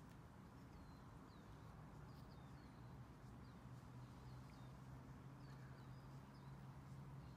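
Near silence: faint, short bird chirps repeating every second or so, over a low steady hum.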